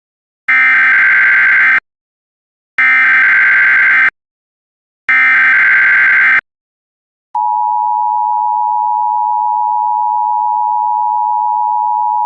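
Emergency Alert System signal: three short bursts of SAME header data tones, each about a second and a half long with short gaps between, then about seven seconds in the steady two-tone EAS attention signal begins and holds.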